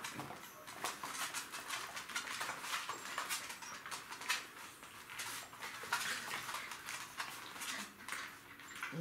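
Two Jack Russell terrier puppies play-fighting on a hard floor: claws and paws clicking and scuffling in quick, irregular taps.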